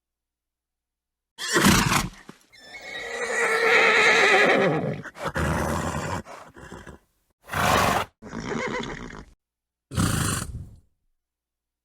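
A horse snorts sharply, then gives a long whinny lasting about two and a half seconds, followed by several more short snorts with silent gaps between them.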